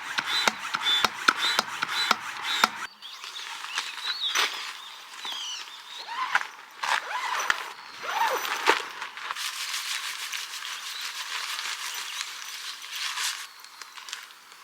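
Tent pegs being hammered in: rapid sharp strikes with a metallic ring, about three a second, stopping about three seconds in. Then rustling and scattered light knocks of tent gear being handled.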